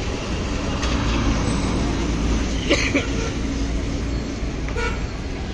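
Road traffic rumbling steadily, with a single sharp knock about three seconds in.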